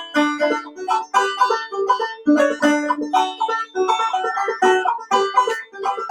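Clawhammer banjo playing an old-time tune as an instrumental break: a quick, even run of plucked notes with a lower note ringing out again and again.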